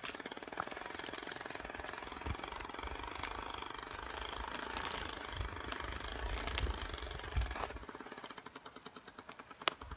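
Playing card held by a clothespin flapping against the spokes of a moving bicycle wheel, a fast motorcycle-like rattle. The rattle slows from about eight seconds in as the wheel loses speed.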